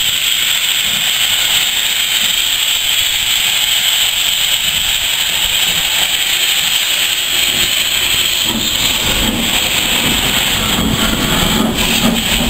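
GER Class Y14 0-6-0 steam locomotive blowing a loud, steady hiss of steam from its open cylinder drain cocks. About two-thirds of the way through, a low rumble of the moving engine joins the hiss and grows as the locomotive comes close.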